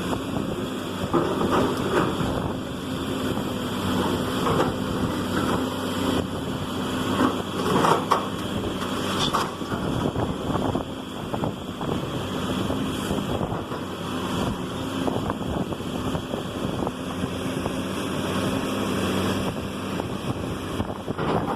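A heavy demolition machine's diesel engine running steadily, with crunching and cracking of breaking debris now and then, most of it in the first ten seconds; wind buffets the microphone.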